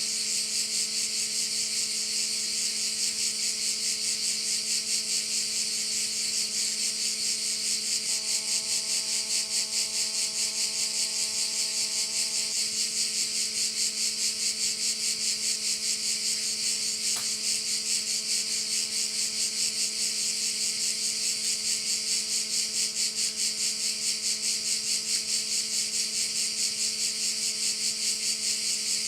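Chorus of cicadas on the Dalmatian coast, a steady, dense, fast-pulsing high buzz that never lets up, with a faint steady hum beneath it.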